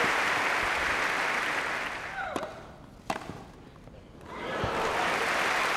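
Tennis crowd applauding after a point, dying away over the first couple of seconds. One sharp knock about three seconds in, then the applause rises again near the end and cuts off.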